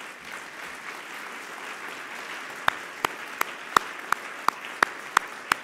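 Audience applauding. From just under three seconds in, one louder set of hands claps in a steady rhythm over it, about three claps a second.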